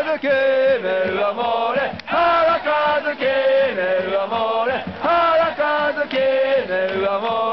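Crowd of football supporters singing a player chant in unison, a steady sung melody phrase after phrase with short breaks between lines.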